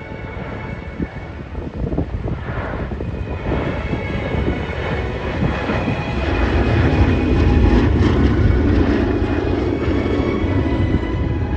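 Piston-engined historic warbird flying past, its engine noise swelling to its loudest a little past the middle and then easing slightly.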